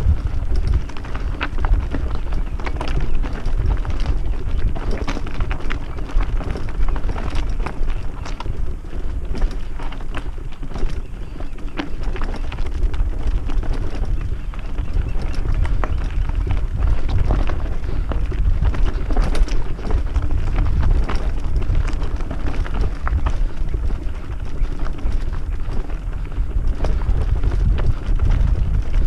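Mountain bike riding over a rocky dirt track: tyres crunching on loose stones and the bike rattling with many small knocks over the bumps, under a steady low rumble of wind on the microphone.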